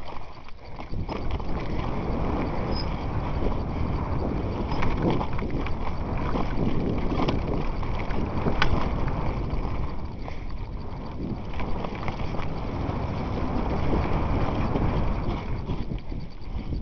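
Continuous rattling and clattering of a mountain bike descending a rough, rocky dirt trail at speed, with many sharp knocks as it hits rocks, over a steady rumble of tyres and wind on the microphone.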